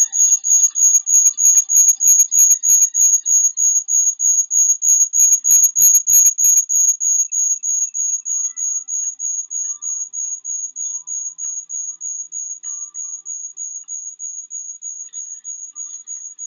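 A high-pitched electronic beeping tone, pulsing several times a second, loud at first and slowly fading over the second half. Faint music plays under it for about the first seven seconds, then stops.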